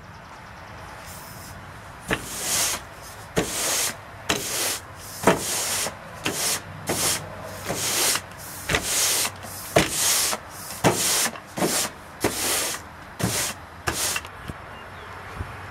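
Push broom with stiff natural-fibre bristles on an extendable pole sweeping sawdust across a ribbed truck bed mat: a run of short scratchy bristle strokes, about one a second, many starting with a sharp tap of the wooden broom head. The strokes start about two seconds in and stop near the end.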